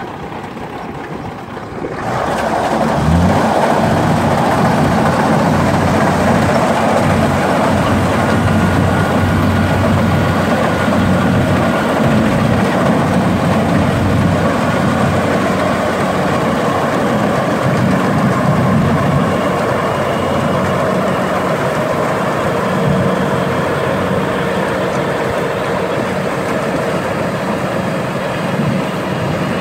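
Kubota DC-68G rice combine harvester running: the engine and threshing machinery get louder about two seconds in with a brief rising sweep, then hold a steady drone as the machine harvests.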